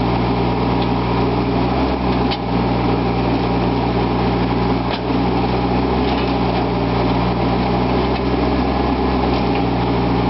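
Caterpillar mini excavator's diesel engine running steadily while the arm and bucket dig, with two short knocks, about two and five seconds in.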